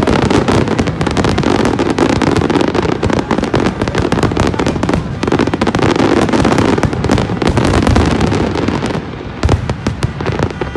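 A dense barrage of fireworks bursting in rapid, overlapping succession, with a brief lull near the end before the bursts pick up again.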